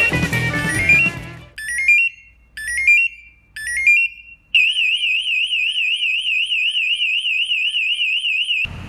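Firefighter's PASS motion alarm (Grace Industries Super PASS II) sounding. It gives three short rising chirp runs about a second apart, the pre-alert, then about four and a half seconds in a loud, continuous, fast-warbling high shriek, the full alarm that signals the wearer has stopped moving. Guitar music plays for the first second and a half.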